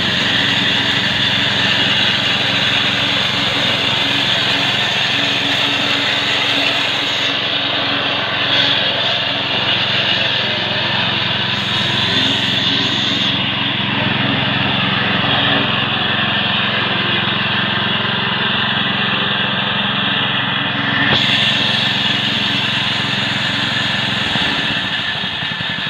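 Small petrol engine of a homemade walk-behind grass cutter running steadily as the machine is pushed through tall grass.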